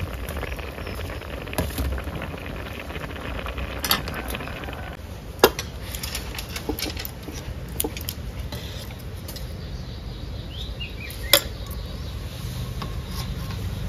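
Scattered sharp clinks and knocks of dishes and utensils, a few seconds apart, the loudest about five and a half and eleven seconds in, over a low steady background rumble.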